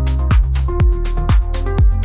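Background electronic dance music: a steady kick drum about twice a second over a sustained bass and held synth notes.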